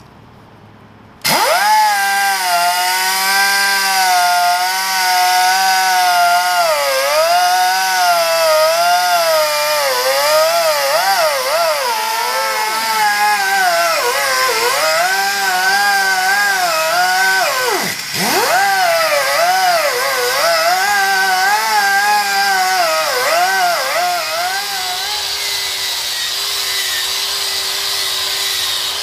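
A hand grinder fitted with a wire brush starts up about a second in and scours rust off a cast iron lathe faceplate. Its whine wavers up and down as the brush is pressed onto the metal and eased off, sagging sharply once, and runs steadier near the end.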